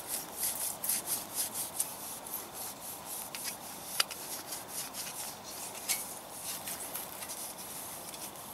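A clump of moss rubbed and scraped over a blackened stainless-steel panel of a Littlebug Junior hobo stove, scrubbing off soot from the wood fire, in a run of short, uneven scrubbing strokes. There is one sharp click about four seconds in.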